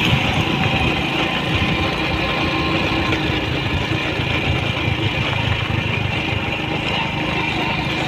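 Motorcycle engine running steadily while riding, heard from on the bike, with wind and road noise over it.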